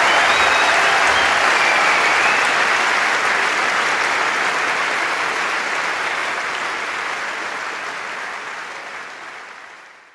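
Audience applause, a dense steady clapping that fades away over the last few seconds and then cuts off.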